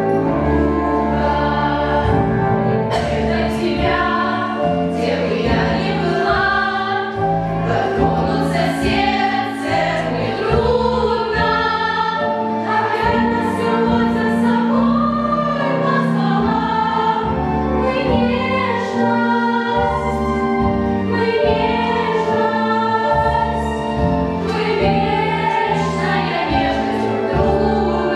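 A small group of teenage girls singing a song together, with instrumental accompaniment underneath.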